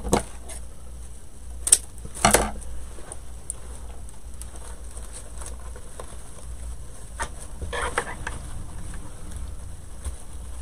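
Artificial greenery and floral picks being handled and arranged by hand, giving a few short clicks and rustles, with a longer scrape a couple of seconds in and another cluster near the end, over a low steady hum.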